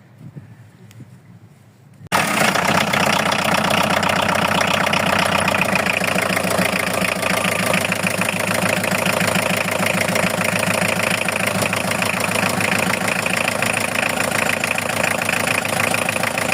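Volkswagen van engine coming on suddenly about two seconds in and then idling steadily, run after a new coolant expansion tank was fitted to circulate the coolant and test the repair.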